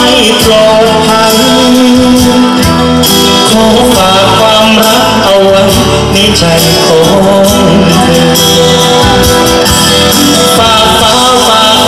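A male vocalist singing live into a microphone over loud accompanying music, amplified through a concert sound system.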